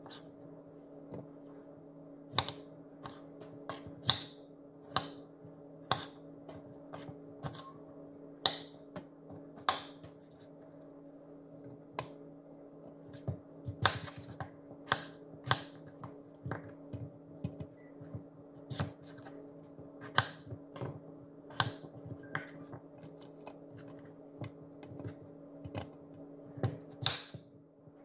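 Kitchen knife cutting a red bell pepper on a wooden cutting board: irregular sharp clicks, about one a second, over a steady low hum.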